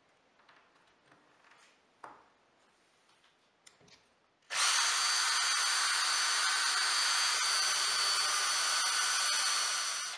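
Cordless drill boring a pilot hole into a plywood block, running at a steady speed for about five and a half seconds from about halfway in and stopping at the end. Before it starts there are only faint small knocks.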